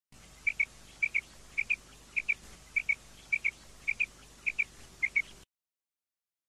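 Female common quail calling: a short two-note call repeated in a steady rhythm, about nine pairs roughly half a second apart. The recording cuts off suddenly to silence about five seconds in.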